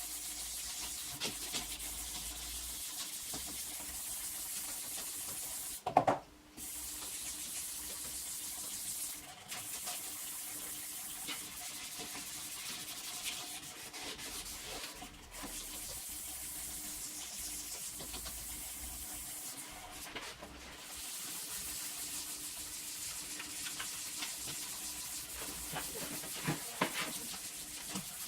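Sandpaper rubbing on a plastic headlight lens: a steady rasping hiss broken by a few short pauses, with one sharp knock about six seconds in.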